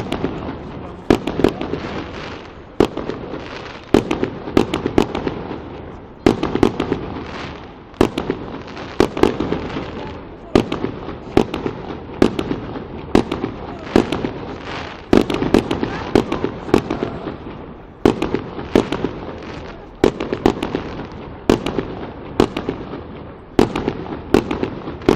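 Fireworks going off in a steady barrage: sharp bangs every second or so, often in twos and threes, each trailing off in an echoing rumble.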